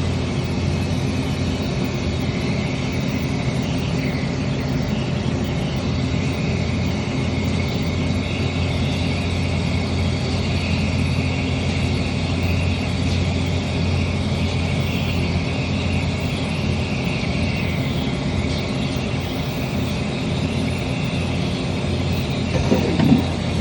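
Wire EDM machine running with a steady hum and a higher hiss over it. A brief louder sound comes near the end.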